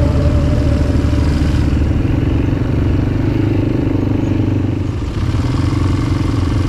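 ATV engine running as the quad is ridden along a dirt trail, a steady low rumble that eases a little about five seconds in.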